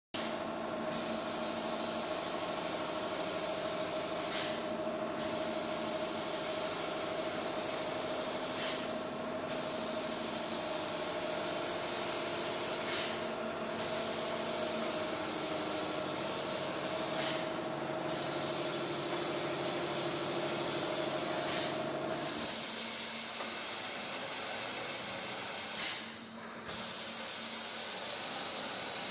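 Four-shaft tape slitting machine running: a steady high hiss that dips briefly with a click about every four seconds in a repeating cycle, over a machine hum whose steady tone stops about three quarters of the way through.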